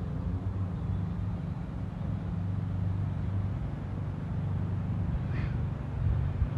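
Strong gusty wind buffeting the microphone: a continuous low rumble that rises and falls with the gusts. A brief faint high chirp sounds about five seconds in.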